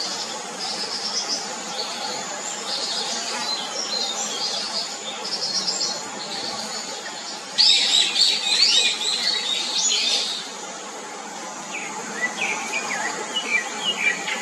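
Scaly thrush nestlings begging with high, thin chirps repeated in quick series while a parent feeds them at the nest. The chirping grows louder and busier for about three seconds halfway through, then thins to a few softer chirps near the end.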